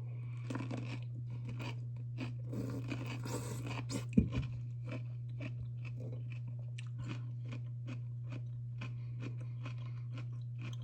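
A person chewing dill pickles close to the microphone: many short wet crunches one after another, with one louder knock about four seconds in. A steady low hum runs underneath.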